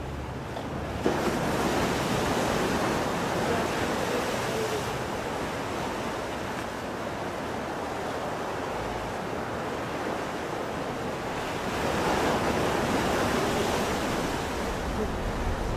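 Ocean waves breaking and washing up on the shore, surging in about a second in and again about twelve seconds in.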